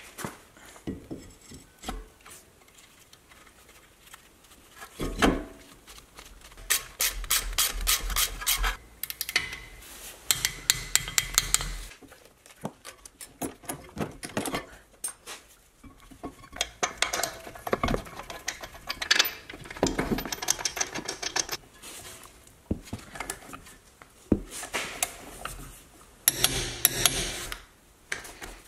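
Hand tools working on a car's front brake assembly: a socket ratchet clicking in quick runs as bolts are driven, with metal parts clinking and rubbing between the runs.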